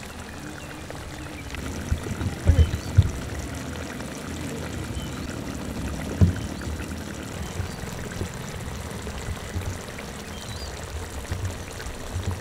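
Fish curry simmering in its pot, a steady bubbling hiss, with a few low knocks about two to three seconds in and again about six seconds in.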